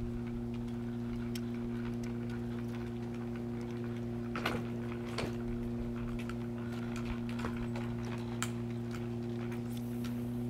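Light, irregular clicks and ticks from a spinning reel and rod being worked while a metal jig is retrieved, over a steady low hum.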